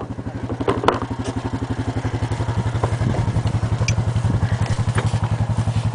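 Engine running at a steady idle with an even beat of about ten pulses a second, with a couple of sharp knocks about a second in.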